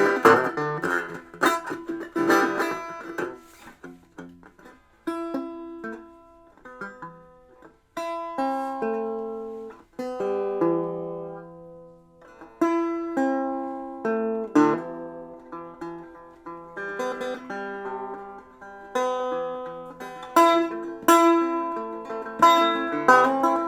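Plucked string instrument playing: quick, busy picking near the start and again near the end, with slower single notes and chords left to ring and fade in between.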